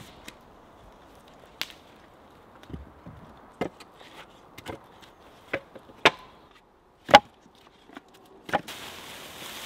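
Pieces of split firewood knocking together as they are picked up and stacked: separate sharp wooden clacks about once a second. A dry rustling starts near the end.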